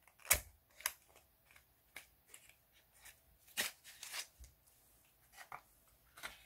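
Cardboard pen box being slid open and a fountain pen in a clear plastic sleeve pulled out of it: an irregular string of short scrapes, taps and crinkles, the sharpest about a third of a second in and again around three and a half seconds in.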